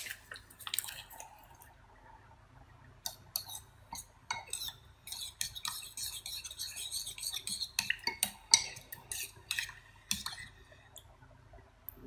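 Metal spoon stirring dry yeast into warm milk in a ceramic bowl, clinking and scraping against the bowl in quick, irregular taps from about three seconds in until near the end. A brief rustle of the yeast sachet comes at the start.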